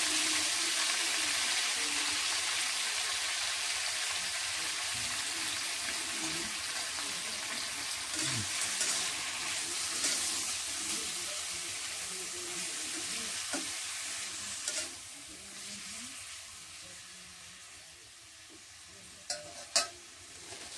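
Sliced red onions sizzling in hot oil in a wok on a gas burner, stirred now and then with a spatula, the sizzle slowly dying down. Near the end a few sharp metal clinks as a spoon strikes a steel bowl.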